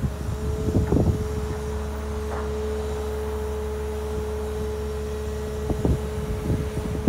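Caterpillar M322D wheeled excavator's diesel engine running under load with a steady hydraulic whine while the boom and stick reach out, and a few brief knocks.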